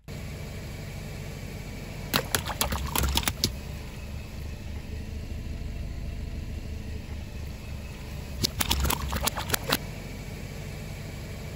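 A car engine running steadily at low speed, with two clusters of sharp pops and cracks, a couple of seconds in and again near the end, as objects are crushed under the car's tyre.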